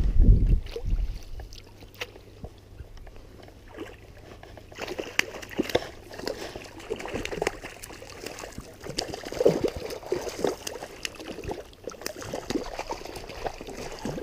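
Water sloshing and splashing in shallow stream water, with irregular knocks and clicks of handling, as a freshly caught trout is held in the water before release. A loud low thump right at the start, and the splashing grows busier about five seconds in.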